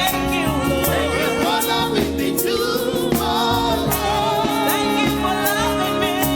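Gospel praise and worship music: voices singing over a band with a steady beat.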